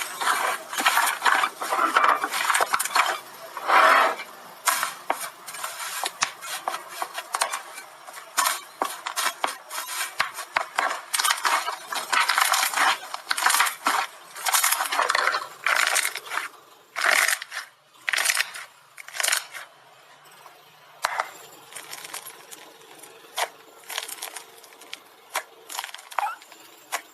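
Slime being squished and poked by hand, giving rapid sticky clicks, pops and crackles that thin out to scattered pops about two-thirds of the way through.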